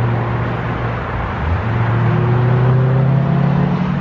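Road traffic passing on a street close by: a vehicle's engine note rising slightly as it goes past, over a steady traffic rumble, loudest about three seconds in.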